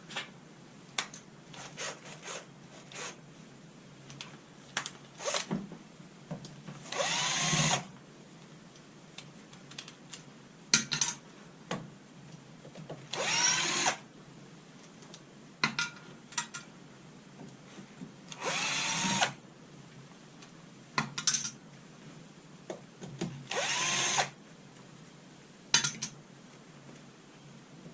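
Power drill-driver run in four short bursts about five seconds apart, its motor winding up and down each time as it backs out the screws holding the battery management board. Small clicks and knocks of handling metal parts come between the bursts.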